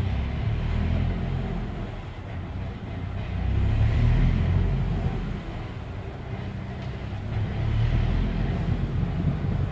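Subaru BRZ's flat-four engine and six-speed manual drivetrain pulling away at low speed, with a rattling (gara-gara) noise that swells and fades a few times as the car moves off. The owner takes the rattle for transmission gear rattle; the dealer puts it down to the reverse-gear synchro and calls it harmless. Heard from outside the car through the open window.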